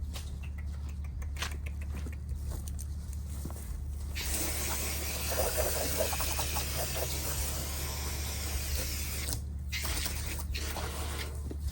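A spray hisses for about five seconds, starting about four seconds in and cutting off sharply, over a steady low hum.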